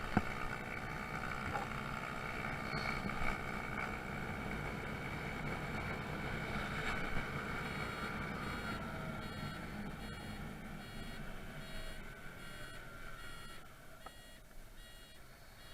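Honda Zoomer's 49cc four-stroke single running steadily on the move, its pitch falling and its sound fading about 12 to 14 seconds in as it slows. It runs smoothly with its new swingarm and final drive gear. From about 8 seconds a faint beeping repeats roughly once a second.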